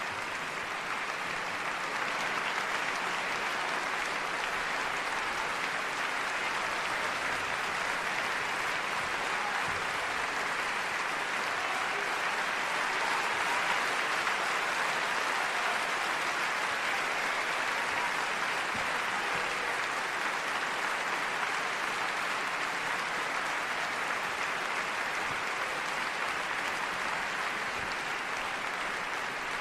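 Steady, dense crowd noise from many people at once, with no single voice standing out.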